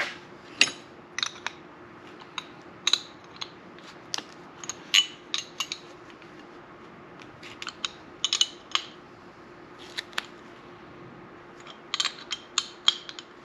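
Scattered sharp metallic clicks and clinks of steel nuts, bolt and hand tools being handled and tightened until the bolt is locked in, over a faint steady hum.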